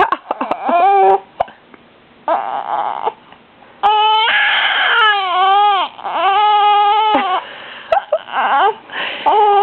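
Baby crying in a string of wails, each about a second long, loudest in the middle; he is crying because of his hiccups.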